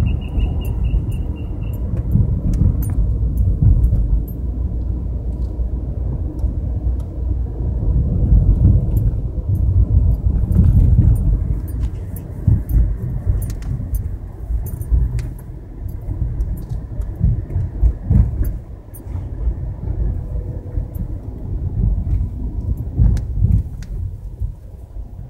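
Road noise inside a car creeping along a wet street: a low rumble from the engine and tyres that swells and eases, with scattered light ticks. A short, high pulsed beeping sounds at the very start.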